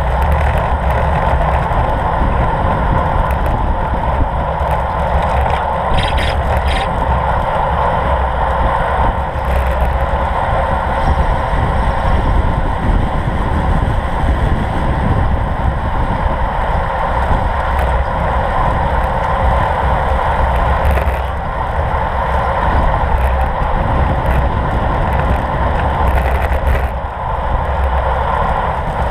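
Steady rush of wind on the microphone of a camera riding along on a road bike, with tyre and road noise underneath. A few brief clicks about six seconds in.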